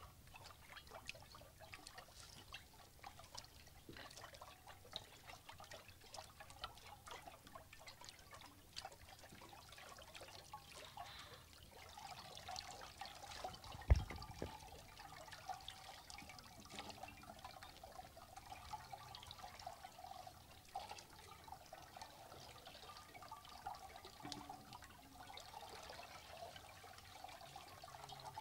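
Water trickling and dripping from cupped hands into terracotta bowls: many small, faint drips and splashes, with one louder low thump about halfway through.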